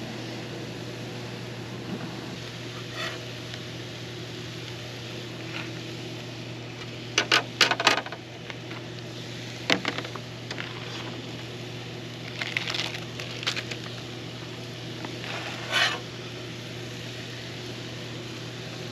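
Metal griddle tools clattering and scraping on a Blackstone flat-top griddle in a few short bursts, a cluster of sharp clacks about seven seconds in and more scrapes later, over a steady low hum.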